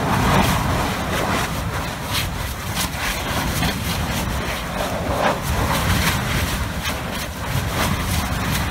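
Kīlauea lava fountain erupting from a ground-level vent: a continuous low rumble with surging hiss and irregular sharp pops and cracks from bursting spatter.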